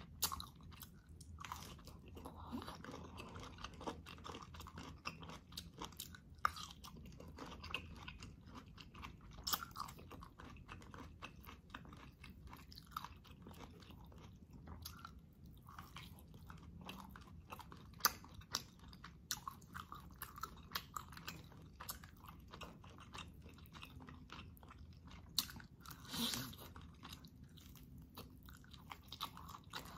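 Close-miked chewing and biting of boiled beef rib meat and vegetables: wet mouth clicks and smacks throughout, with a few sharper clicks and one longer, louder smack near the end.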